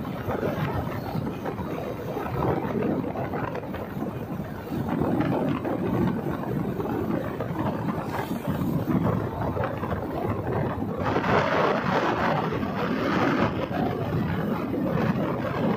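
Wind rushing and buffeting over the microphone of a moving motorcycle, with low rumble from the ride underneath. The rush grows louder and brighter for a couple of seconds about eleven seconds in.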